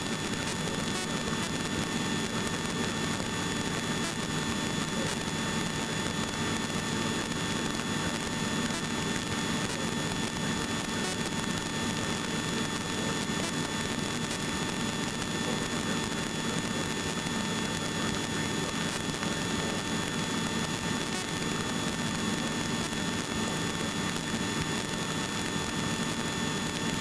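Small helicopter in cruising flight heard from inside the cabin: a steady, even drone with several thin, constant high-pitched tones over it.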